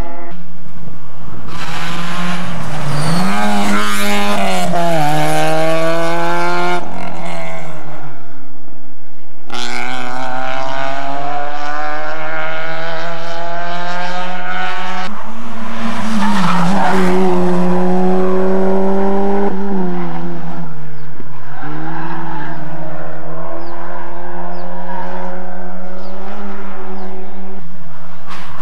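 Rally car engines working hard along a tarmac stage. The engine note climbs and drops again and again as the cars change gear and lift off, with a couple of brief breaks.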